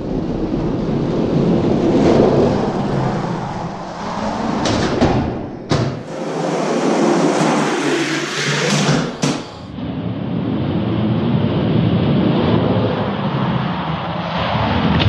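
Plastic wheels of diecast monster trucks rolling down plastic track, a steady rushing rumble that swells and fades, broken by abrupt cuts near six seconds and again near nine and a half.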